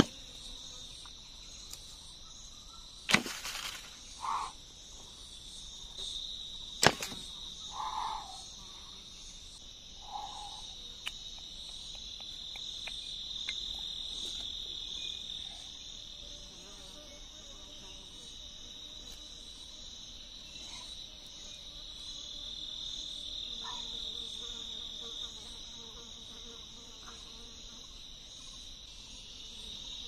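Continuous insect chorus: a steady high-pitched buzz with a fast, even pulse. Two sharp knocks stand out about 3 and 7 seconds in.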